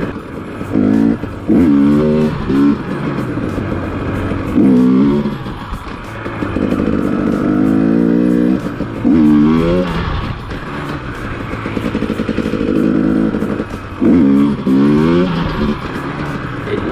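KTM EXC 250 TPI two-stroke dirt bike engine, revved sharply about five times to pop the front wheel up, dropping back between blips, with stretches of steady running in between.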